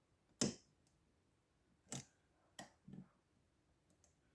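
Four short, sharp metallic clicks, irregularly spaced, from a Zeiss Ikon K9 padlock cylinder being single-pin picked with a hook under heavy tension. The clicks come from the pick working the pin stacks and the plug shifting as pins set or counter-rotate.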